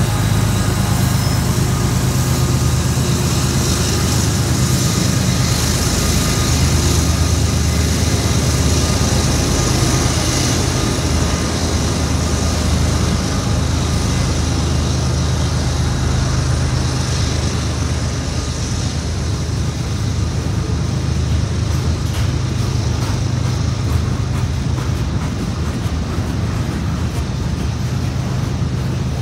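Freight train passing close by: BNSF diesel locomotives rolling past at first, then double-stack intermodal container cars running over the rails with a loud, steady rumble and hiss.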